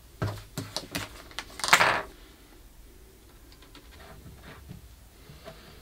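Small workshop parts being handled on a bench: a run of light clicks and knocks, with one louder scraping clatter near two seconds in. After that come faint ticks while a small drill-press vise is wound shut on an aluminium part.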